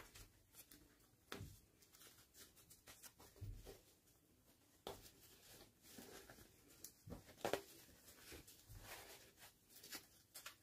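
Faint rustling of a fabric doll dress and soft clicks and taps of a plastic fashion doll being handled and dressed, with a slightly louder cluster of handling noise a little past the middle.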